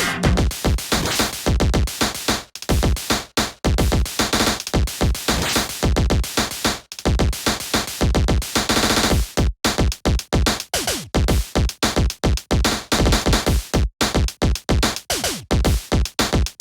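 Electronic music with a fast drum-machine beat and chopped, stuttering sounds, with a couple of brief dropouts.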